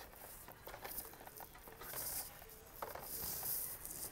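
Crinkling and light clicking of a carded action figure's plastic blister and cardboard backing being handled, in several short bursts.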